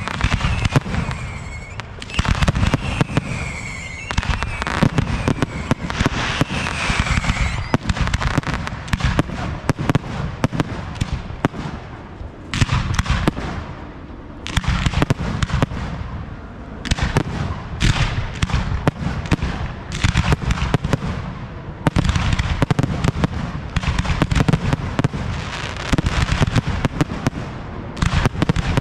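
Fireworks display: a rapid barrage of mortar launches and aerial shell bursts, with short lulls. Whistling tones that drop slightly in pitch sound several times during the first eight seconds.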